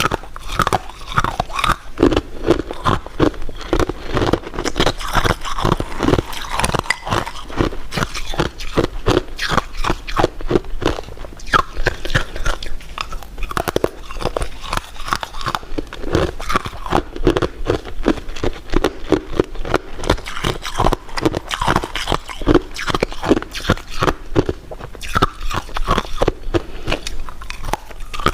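Close-miked eating: a steady run of biting and chewing on a crunchy dessert, made up of many short crisp clicks with no pauses.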